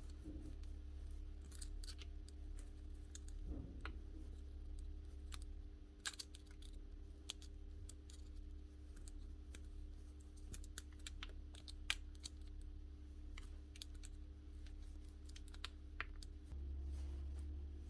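Faint, irregular small clicks and taps of tools and parts being handled, over a steady low hum that grows louder near the end.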